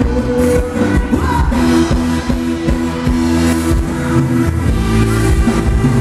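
A live band playing Thai ramwong dance music, with a steady beat, held instrumental notes and a sung vocal line.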